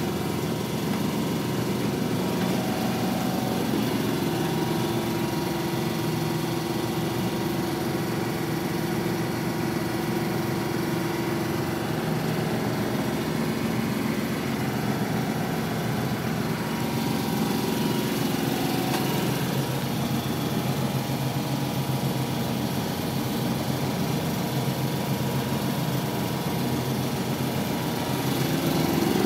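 A sailing yacht's engine running steadily, heard from inside the cabin.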